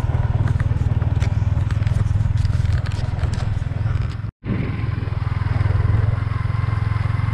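Motorcycle engine running steadily while riding a muddy, rutted dirt road, with scattered clicks and rattles in the first few seconds. The sound drops out for a moment about four seconds in, then the engine picks up again.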